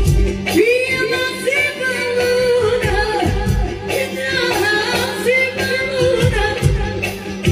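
Live Balkan folk dance music over loudspeakers: a singer's ornamented line, sliding and bending in pitch, over sustained keyboard chords and a drum beat.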